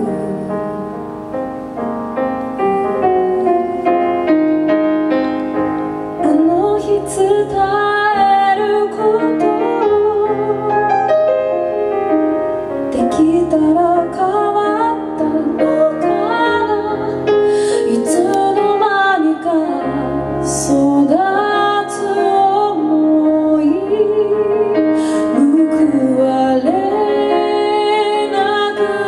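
A woman singing a melody into a microphone, accompanied by piano.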